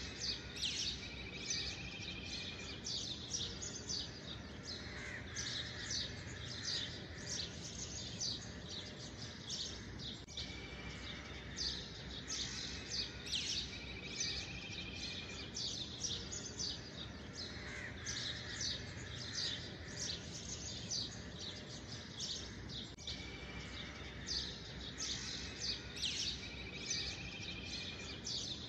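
Many small birds chirping and twittering without pause, with a short trill that recurs every several seconds, over a steady low background hum.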